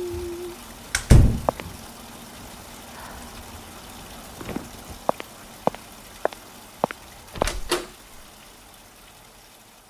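A heavy thump about a second in, then a run of five or so sharp taps about half a second apart and another thump, over a steady low hum.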